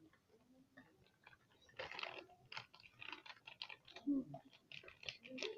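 Faint small clicks, taps and scrapes of a spoon and containers being handled while cornstarch is scooped into a bowl, with a short rustle about two seconds in.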